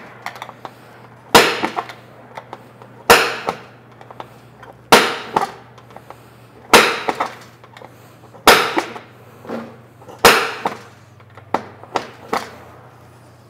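Papa-Dent dent tool with a chisel bit striking the inside of a rocker molding in sharp metallic blows with a brief ring, about one every two seconds, then a few lighter taps near the end, knocking out a heavy dent.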